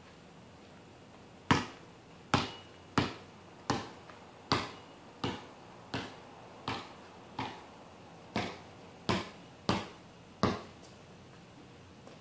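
Basketball dribbled on a concrete driveway: about thirteen sharp bounces, a little under one and a half a second, starting about a second and a half in and stopping around ten and a half seconds, just before the shot.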